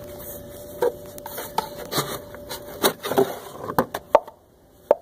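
Plastic clicks, knocks and scraping as the mulching plug is worked out of the rear discharge opening of a Kobalt 40V cordless lawn mower. The sound is an irregular run of short knocks, busiest about three to four seconds in.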